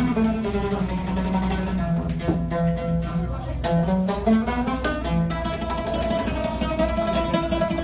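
An oud played solo, its plucked strings carrying a melody that bends up in pitch around the middle.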